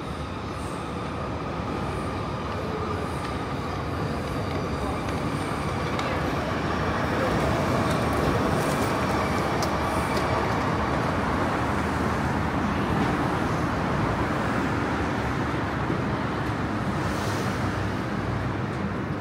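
Steady city-street noise of passing vehicles, a dense rumble that grows louder over the first several seconds and then holds.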